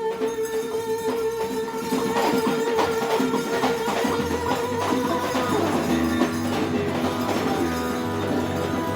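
Live instrumental music: electric guitar holding long sustained notes over hand percussion, with the guitar moving to new notes about halfway through.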